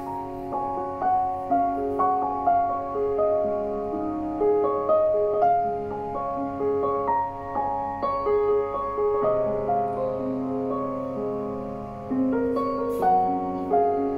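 Background piano music: a slow, gentle melody of held notes at an even pace.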